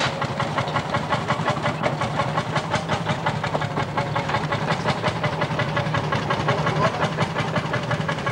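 Vintage tractor engine running with a fast, even chugging beat.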